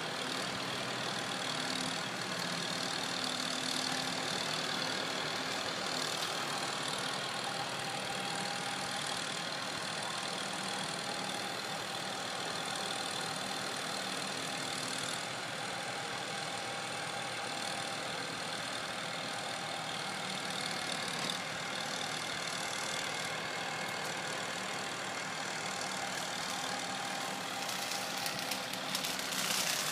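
Tractor engine running steadily as it drives a front-mounted brush mulcher through brush. Near the end a louder crackling noise comes in.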